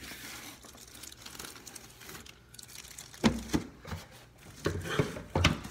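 Packaging being handled and opened: rustling and crinkling, with a few sharp crackles in the second half.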